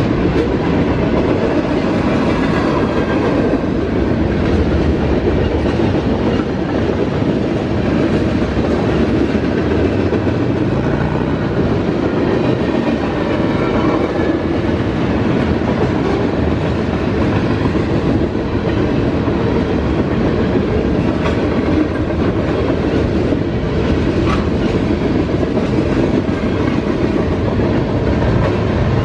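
Freight train cars rolling steadily past a grade crossing: steel wheels clattering and rumbling on the rails in a continuous loud rush.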